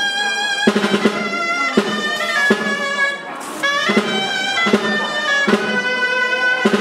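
Dolçaines (Valencian shawms) playing a bright reedy melody over steady strokes of a tabal drum, with a brief break in the melody about three seconds in.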